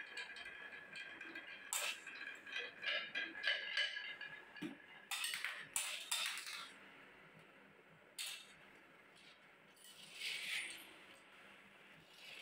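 Glass marbles rattling as they roll down the zigzag grooves of a wooden HABA marble-run slope. Around the middle they clack loudly as they drop into a toy container truck and onto the floor. Near the end comes a short scraping as a toy truck is slid across the floor.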